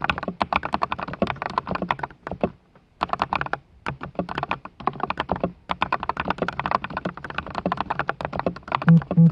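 Typing on a foam-modded MonsGeek MG108W mechanical keyboard with lubed Kang White V3 switches and XDA keycaps: fast runs of key clacks with a couple of brief pauses, and a few louder, deeper hits near the end.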